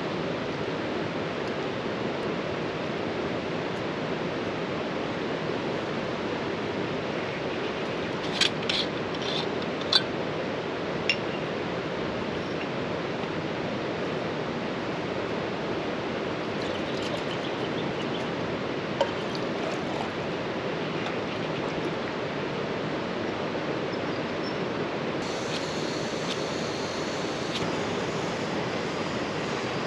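Steady rushing of a river running high after heavy rain. A few small clicks and clinks stand out over it, several about 8 to 11 seconds in and one near 19 seconds.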